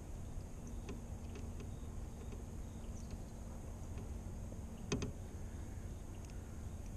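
Handling noise from tying fishing line to a skirted jig close to the microphone: a few faint ticks and one sharp click about five seconds in, over a steady low outdoor rumble and a faint high hiss.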